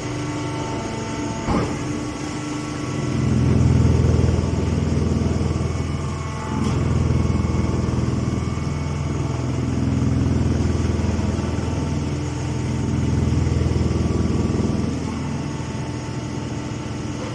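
Hay baler machine running: a steady motor hum that swells louder under load four times, each surge lasting a couple of seconds, with a sharp click about one and a half seconds in.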